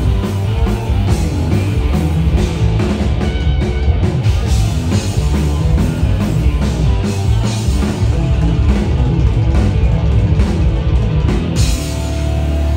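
Rock band playing loud, with drum kit, bass guitar and electric guitar; near the end the drumming stops and a low chord is held.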